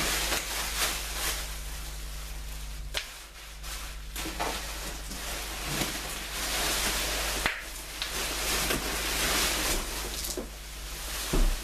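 Bubble wrap rustling and crinkling as it is pulled and bunched off a large cardboard box, with scattered clicks and knocks from the box. Near the end there is a single dull thump, the loudest moment.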